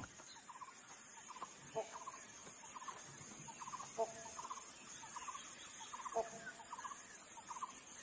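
Faint wild-bird ambience: small birds calling over and over in quick groups of three or four chirps, with a few slightly louder, lower calls about two, four and six seconds in, over a steady high-pitched insect hiss.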